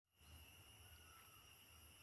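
Near silence: faint forest background with a thin, steady high-pitched drone and a low rumble underneath.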